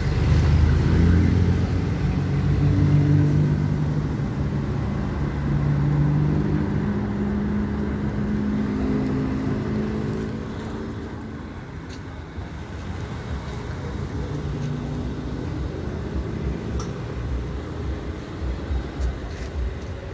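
Street traffic: a motor vehicle engine running close by, with a steady low hum that is loudest in the first half and fades away after about ten seconds, leaving a low rumble.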